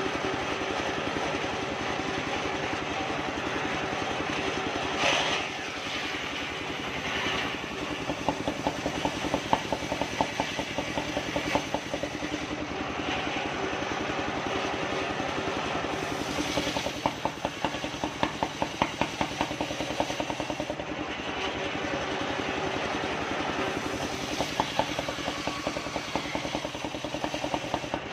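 Engine-driven circular saw bench running, its large disc blade ripping a soft kapok log lengthwise into boards. The engine's steady run is broken by several stretches of rapid, even pulsing while the blade is cutting.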